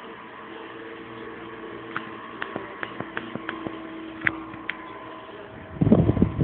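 Philips 2000-16-M table fan running with a steady motor hum. A run of light clicks comes in the middle, and heavier low thumps near the end.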